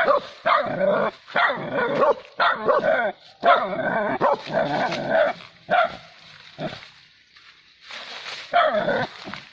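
Dogs barking excitedly in a rapid string of barks. They thin to a couple of single barks, pause for about a second and a half, then bark again near the end.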